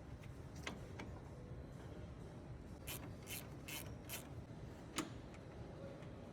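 Light, sharp clicks over a low steady background rumble: two near the start, four evenly spaced in quick succession in the middle, and one louder click about five seconds in.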